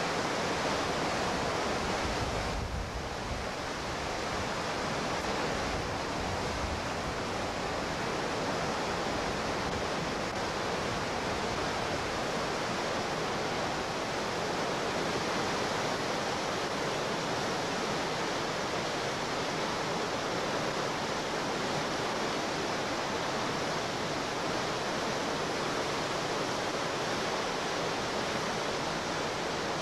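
Whitewater rapids rushing steadily, with a brief slight dip in level about two and a half seconds in.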